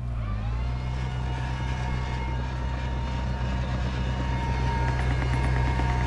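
Komatsu D31P bulldozer's diesel engine running steadily, picking up slightly in pitch just after the start, with a thin high whine over it.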